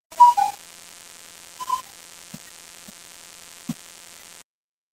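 A short stretch of hiss and electrical hum that starts and cuts off abruptly out of silence. It carries short tone blips near the start and again under two seconds in, then three soft low thumps.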